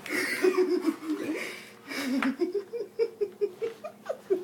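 A person laughing in runs of short pitched bursts, several a second, trailing off near the end.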